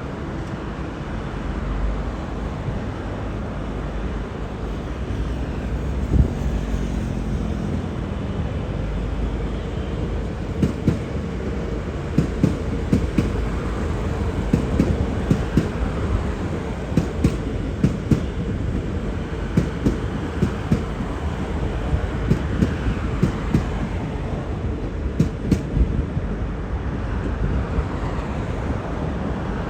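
V/Line VLocity diesel multiple unit running past with a steady rumble. From about ten seconds in, its wheels clack over rail joints and points in a run of sharp clicks, a few each second.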